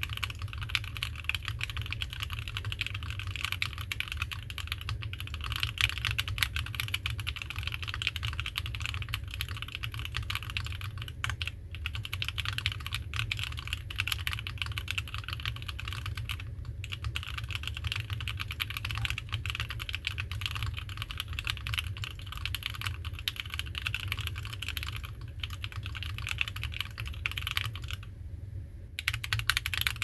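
Fast typing on a custom 65% mechanical keyboard with an aluminum plate, lubed-and-filmed Banana Split linear switches and PBT keycaps: a dense, steady clatter of keystrokes. There are a few brief breaks and a longer pause of about a second near the end.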